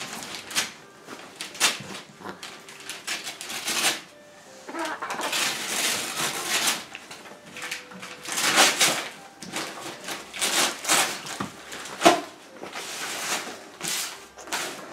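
Wrapping paper being torn off by hand and crumpled, in irregular rustling, ripping bursts. A sharp knock about twelve seconds in.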